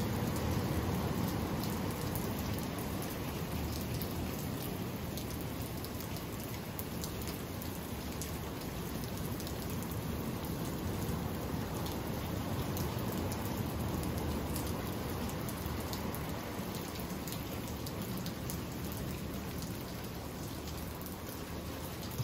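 Thunderstorm rain pouring down steadily: a dense hiss with many drops pattering, easing slightly toward the end.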